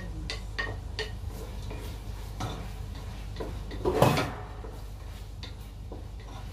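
Spatula clicking and knocking against a plate and a pot while cut vegetables are pushed into the pot, with one louder scrape or clatter about four seconds in. A steady low hum runs underneath.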